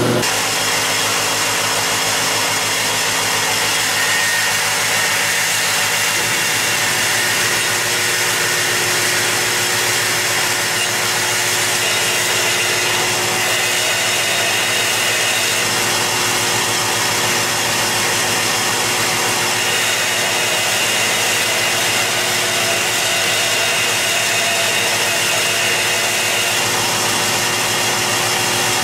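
Belt grinder running steadily while a hardened steel adze blade is held against the belt at the contact wheel, grinding the bevel in the finish-grinding stage after heat treatment.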